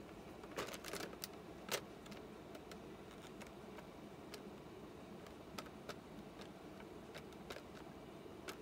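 Clear plastic blister tray clicking and crackling faintly as gloved hands handle it, with a cluster of clicks about a second in and scattered light ticks after.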